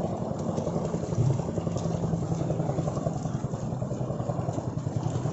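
A small engine running steadily as a low hum, under the constant splashing of a mass of catfish thrashing in shallow muddy water.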